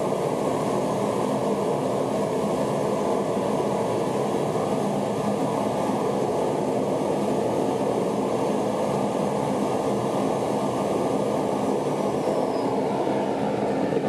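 Homemade propane burner firing a DIY foundry furnace at full gas flow: a steady, even rumble of burning gas with no break.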